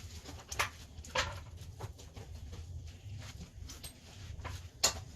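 Hand tools being handled and set down: a few scattered light clicks and knocks over a low steady hum.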